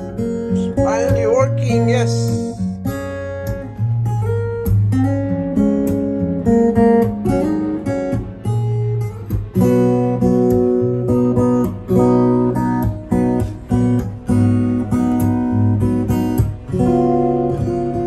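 Acoustic guitar playing a melody of plucked notes and chords.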